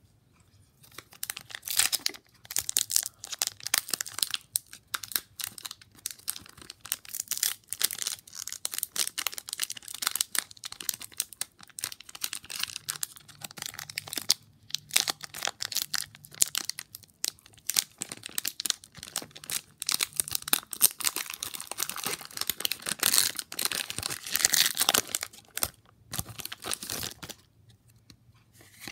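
Foil wrapper of a Pokémon trading card booster pack being torn open and crinkled in the hands: a long run of crackling and rustling with a short pause about halfway through.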